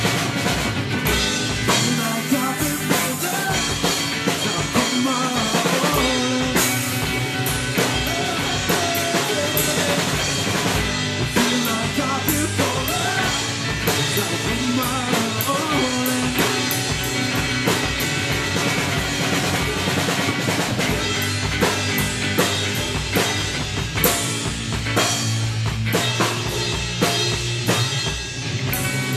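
Rock song with a drum kit and guitar, the kick drum keeping a steady beat.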